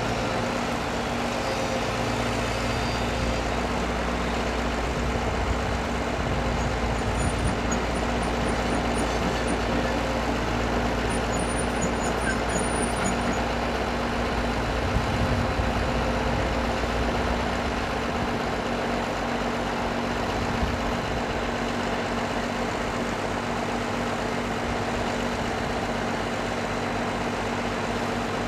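Heavy diesel machinery running steadily: a Komatsu PC130 hydraulic excavator at work loading seed-potato bulk bags, with tractor engines running as well. The low engine rumble changes about two-thirds of the way through.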